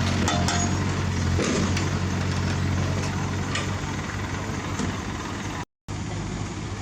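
Heavy diesel engine of earthmoving machinery running steadily with a low hum, with a few sharp clicks and knocks over it; the sound cuts out for a moment near the end.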